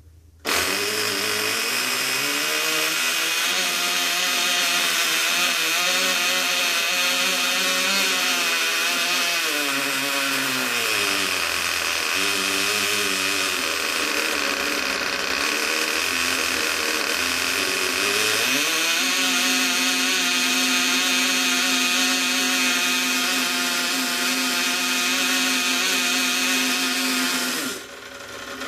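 Cox .020 model glow engine, a tiny two-stroke, catches about half a second in and runs at high speed, its pitch wavering up and down for the first ten seconds and again briefly, then holding steady. Near the end it falters and surges once; the owner blames the exhaust throttle's spring catching the propeller.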